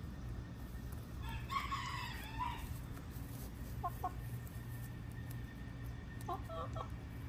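Domestic chickens calling while foraging on grass. A longer drawn-out call starts about a second in, followed by short clucks around four seconds and again near the end, over a steady low background hum.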